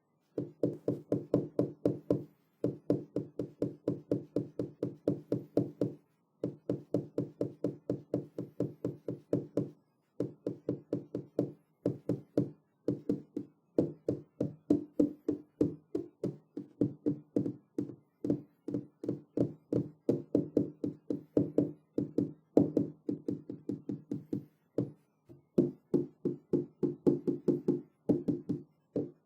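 Fingers or knuckles tapping on a glass window pane in quick runs of about five or six taps a second, each run lasting a few seconds with short pauses between them.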